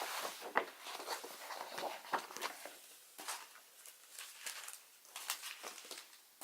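Paper and cardboard items being handled and shifted: irregular light rustles, taps and scrapes.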